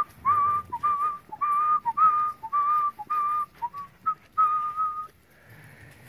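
A person whistling a repeated two-note call, a short lower note then a longer higher one, about two a second, stopping about five seconds in. It is a whistle to call the dogs back after losing sight of them.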